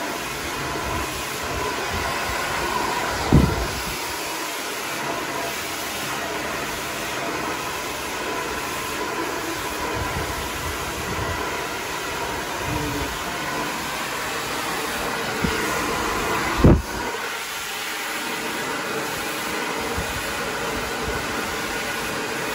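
Hand-held hair dryer running steadily, blowing air through long hair wound on a round barrel brush. Two short low thumps, a few seconds in and again about three quarters through, stand out as the loudest moments.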